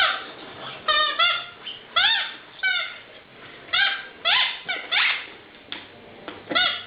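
Rubber squeaky dog toy being chewed by a puppy: a string of about ten short, pitched squeaks, irregularly spaced, some in quick pairs and triplets.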